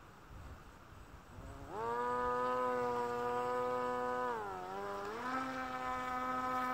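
Remote-control fan boat's motor and air propeller spinning up to a steady buzzing hum about two seconds in, sagging in pitch for a moment past the middle, rising back, then falling away at the end.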